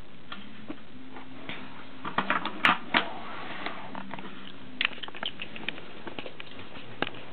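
Handling noise of a camera and plastic toy pieces: scattered light clicks and rustles, with a cluster of sharper clicks between about two and three seconds in.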